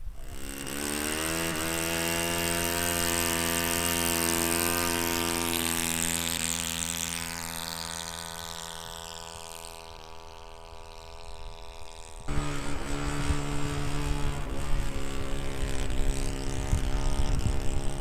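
Radio-controlled biplane's O.S. FS-40 four-stroke model engine, converted to run on gasoline, running at a steady high throttle; its pitch rises over the first second or so, then it fades as the plane moves away. After a cut about twelve seconds in it is loud and steady again, with wind rumbling on the microphone.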